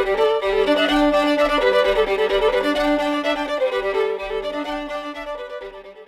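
Background music led by a fiddle playing a melody over a steady drone, fading out near the end.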